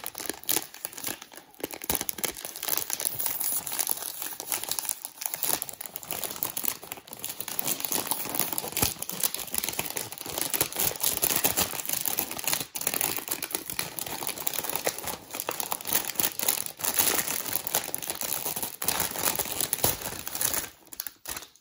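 Crinkly plastic snack bag being pulled and torn open and handled, with dense crackling and crinkling that stops only in short pauses. Near the end the clear plastic tray inside is slid out of the bag.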